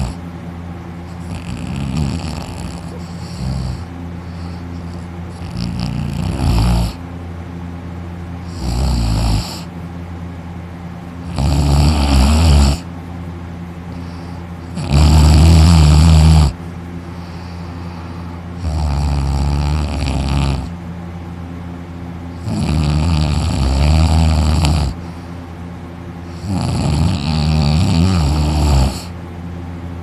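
An exhausted man sleeping on his back with his mouth open, snoring loudly: about eight long snores, one every three to four seconds, the loudest near the middle.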